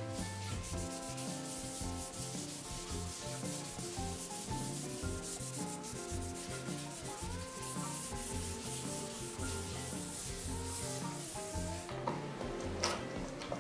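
A brush and rag scrubbing oil into pine boards, a steady scratchy rubbing that stops about twelve seconds in, over background music with a melody and a bass line.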